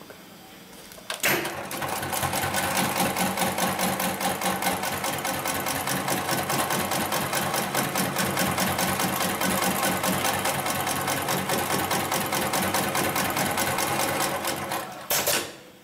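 Hightex 71008 heavy-duty computer-controlled pattern sewing machine starting with a sharp click about a second in and stitching rapidly and evenly through layered webbing straps. It stops with another sharp click near the end.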